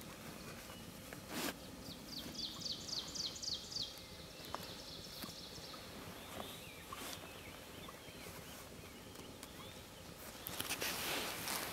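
Quiet outdoor ambience with a bird singing a quick run of about nine high, falling notes, then a few fainter chirps. A single sharp click comes just before the song, and a soft rustling rises near the end.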